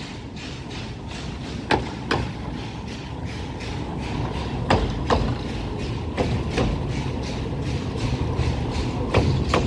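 Narrow-gauge open passenger coaches rolling slowly past, with a low rumble that grows louder. Their wheels click over rail joints in pairs, four times.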